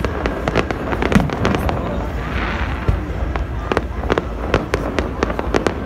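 Fireworks display: a rapid, irregular string of sharp bangs and crackles, several a second, with a brief hiss about two and a half seconds in.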